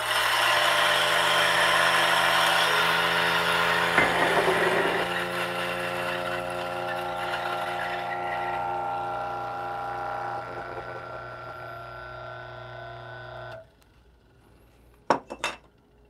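Electric single-dose burr coffee grinder grinding a 20 g dose of espresso beans. The motor hums steadily under a crunching grind that is densest early on and thins as the beans run through. The motor stops suddenly about three-quarters of the way in, followed by a few sharp knocks near the end.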